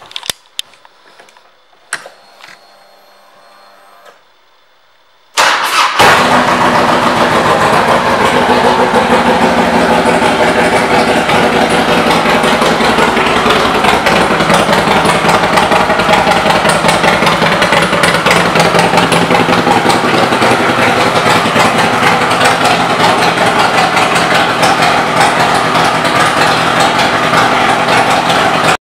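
2006 Harley-Davidson Electra Glide Classic's V-twin, fitted with a Screaming Eagle air cleaner, being started: a couple of clicks and a faint whine, then about five seconds in the engine fires and settles into a steady, loud idle.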